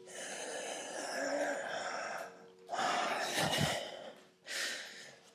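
A person breathing deeply and audibly: one long breath of about two seconds, then two shorter ones. Underneath is the faint steady ringing of crystal singing bowls.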